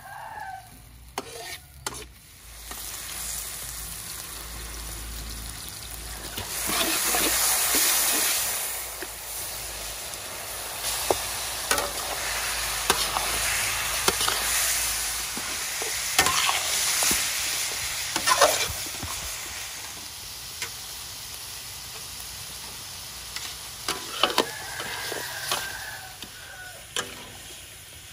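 Chicken pieces sizzling in hot oil in a large steel wok while a metal spatula stirs them, scraping and clicking against the pan. The sizzle swells to its loudest about seven seconds in.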